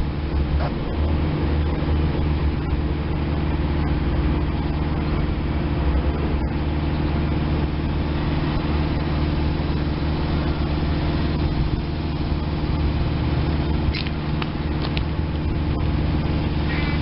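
An engine idling nearby: a steady low hum that holds even throughout, with a few faint clicks near the end.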